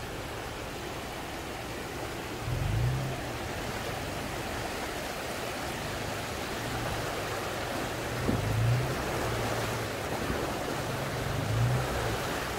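Truck engine revving in short swells a few times, over a steady rushing noise of fast-moving river water.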